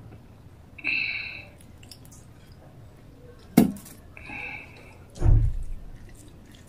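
Fingers mixing rice with gravy, broken by two short metallic rings from a stainless steel bowl. A sharp tap comes about three and a half seconds in, as the bowl goes down on the table, and a heavy low thump follows about two seconds later.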